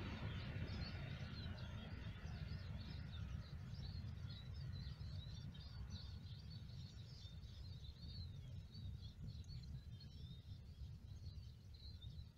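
A departing train's diesel locomotive fades away over the first few seconds, leaving a steady low rumble. Small birds chirp and sing throughout.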